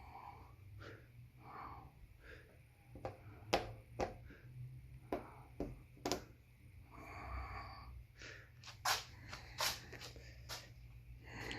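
About a dozen sharp clicks and knocks at uneven intervals, with soft rustling between them, over a low steady hum.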